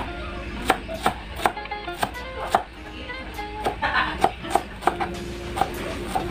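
Kitchen knife slicing red onion on a plastic cutting board: sharp, irregular taps of the blade hitting the board, roughly two a second, with light background music.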